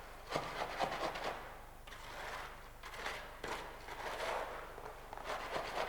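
Fresh concrete being remixed by hand: irregular scraping strokes of a tool through the wet mix, about one or two a second.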